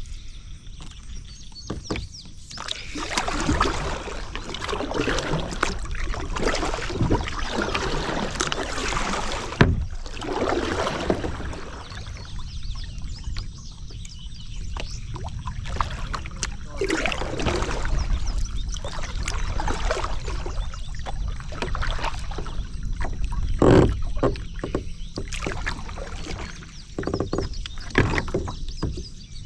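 Kayak being paddled on a river: irregular paddle strokes dipping and splashing, with water sloshing against the hull.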